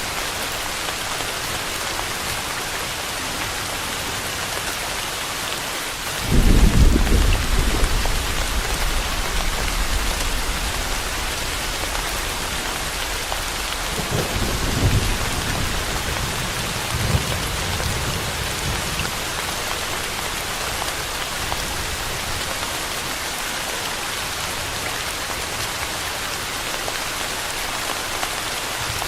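Steady rain hiss with thunder: a sudden loud thunderclap about six seconds in that rumbles on and fades over several seconds, then a weaker second rumble of thunder about fourteen seconds in.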